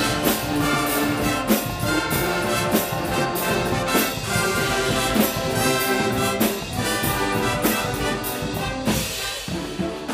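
A Guggenmusik carnival band playing live: massed trumpets, trombones and sousaphones over drums and cymbals struck in a steady beat. The music thins out a little near the end.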